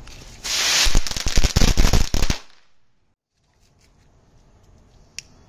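A small firecracker going off: a dense hissing crackle of rapid pops and snaps for about two seconds, which stops suddenly.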